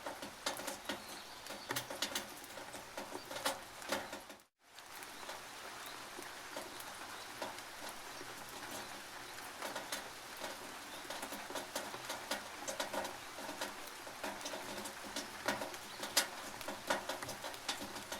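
Rain dripping and pattering on a tin roof: a dense, irregular run of sharp drop hits. It cuts out completely for a moment about four and a half seconds in, then goes on.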